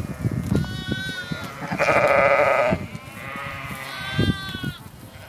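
A flock of sheep bleating: several calls in turn, the loudest and longest about two seconds in and lasting about a second. Soft low knocks and rustling run underneath.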